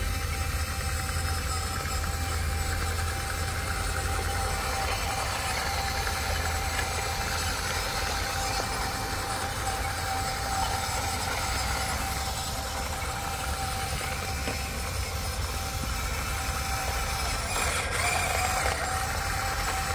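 Huina RC hydraulic excavator running, a steady low hum with a constant whine over it.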